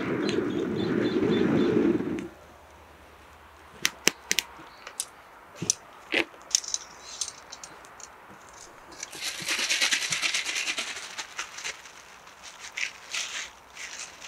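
Air blown through a fire-blowing pipe into campfire embers: a low rushing whoosh that stops about two seconds in. It is followed by sharp metallic clicks and clinks as a wire grill and tongs are handled over the fire, and a brief hiss near the end.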